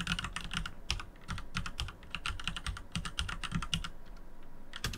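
Typing on a computer keyboard: a quick, uneven run of keystrokes that stops about four seconds in, followed by a single keystroke near the end.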